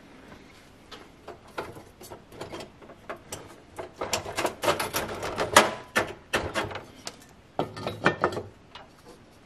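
Irregular clicks, knocks and clatter of small hard objects being handled or tapped. They are busiest in the middle and come again in a short burst near the end.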